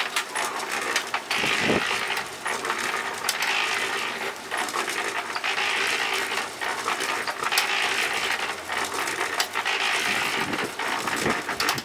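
Continuous gritty rattling and scraping with many small clicks, swelling about every two seconds, typical of concrete or mortar being worked.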